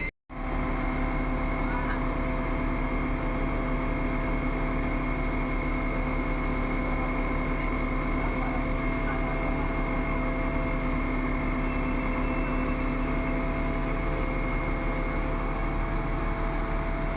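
XCMG 47-metre concrete pump truck running steadily with its hydraulics working the boom: an even machine hum with several held whining tones that do not change.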